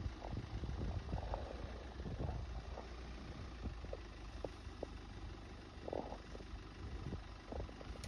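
An engine idling low and steady, with scattered faint clicks and knocks.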